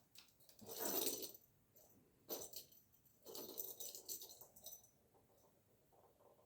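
A pet bird's toy rattling and clicking in three short spells, the first about a second in and the longest near the middle.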